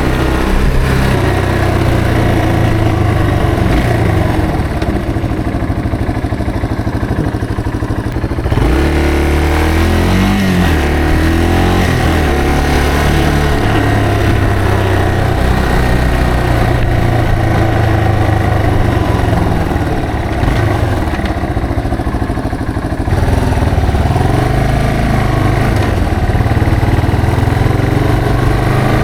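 Yamaha TW225's single-cylinder four-stroke engine running under way. The engine note dips and climbs again about eight to ten seconds in, and shifts again a little past twenty seconds, as the rider changes speed.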